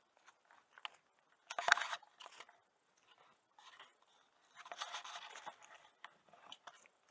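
Footsteps crunching through dry leaf litter on a dirt trail, in uneven bursts, the loudest about two seconds in.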